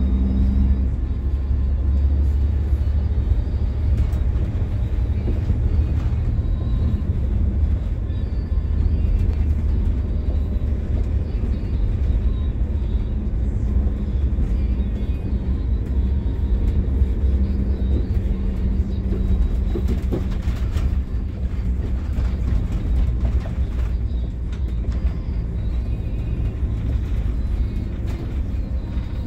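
Bus heard from inside the driver's cab while driving along a snow-covered road: a steady low drone of the engine and tyre and road rumble. Faint music plays underneath.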